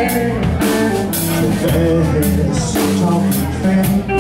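Live blues-rock band playing: electric guitars over a drum kit, with a steady, heavy low line and a regular drum beat.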